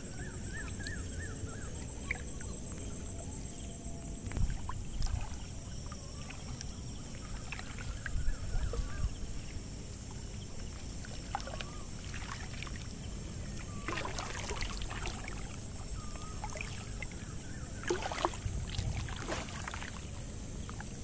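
Riverside ambience at dusk: a steady high-pitched buzz throughout with short bird chirps now and then, over low rustling and water sloshing around a man wading in the river. A few brief splashing noises come near the middle and near the end, as he swings his fishing rod to cast.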